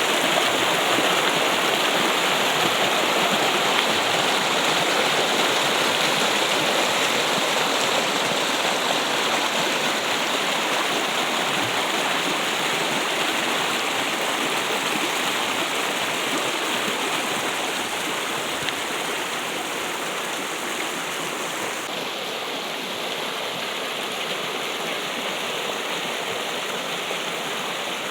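Trickling, flowing water making a steady, even rush, growing slightly softer toward the end.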